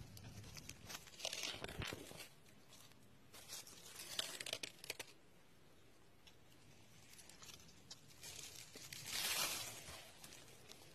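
Dry fallen leaves rustling and crackling faintly in three short bursts: about a second in, around four seconds, and again around nine seconds.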